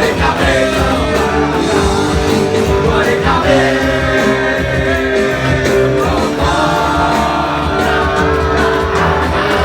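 Rock band playing live: guitars over a steady beat, with a voice singing over the top.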